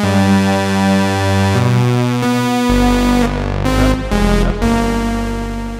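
Synthesizer music: sustained chords that change every second or so, with a deep bass coming in about three seconds in, fading out near the end.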